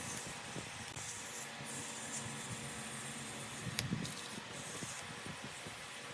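Steady hiss of sandpaper against a goncalo alves (tigerwood) shift knob spinning on a running wood lathe, with the lathe motor humming faintly underneath. One sharp click a little under four seconds in.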